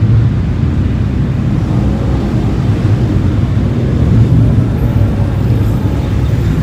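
Low, steady rumble of a car driving slowly, with engine, exhaust and road noise, heard from a phone held out of the car's window.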